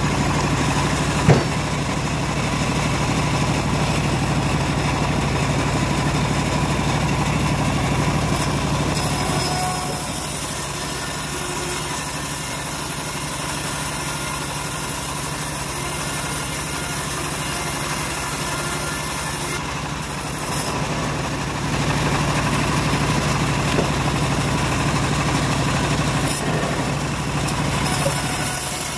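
Homemade bandsaw mill running steadily, its blade sawing slabs of hard jowar wood. The hum is louder during two stretches of cutting, at the start and again near the end, with one sharp knock about a second in.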